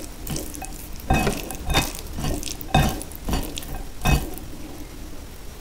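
Fingers mixing cooked rice into thick paneer gravy in a ceramic bowl: a wet, squishing stir, with five sharper moments roughly a second apart.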